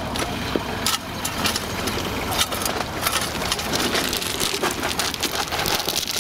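Tractor engine running, with a shovel scraping and crunching through crushed-stone gravel from a little past two seconds in, a dense run of small stone clicks.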